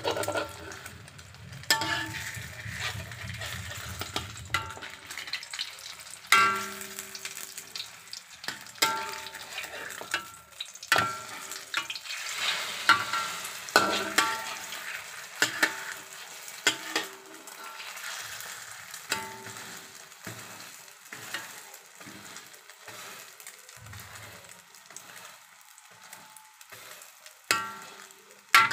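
Omelette frying in hot oil in a wok, sizzling steadily, while a metal spatula scrapes and knocks against the wok at irregular intervals, each strike ringing briefly off the pan.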